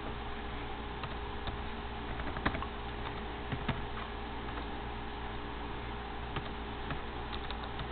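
Typing on a laptop keyboard: scattered, irregular keystrokes, one louder tap about two and a half seconds in, over a steady background hum.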